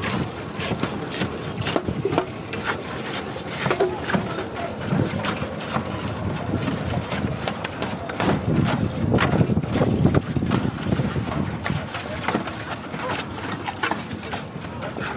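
Irregular knocking and clattering of building work, with people talking in the background.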